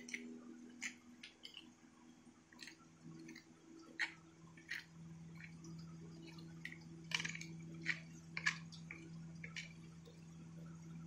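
Steel spoon tapping and scraping against a small steel bowl while spice powders are stirred into water to make a masala paste, in irregular light clinks. A steady low hum sits underneath from about three seconds in.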